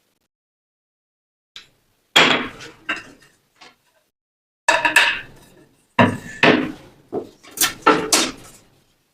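A string of irregular knocks and clatters, about ten in all, with short ringing tails: workshop work with wood and tools.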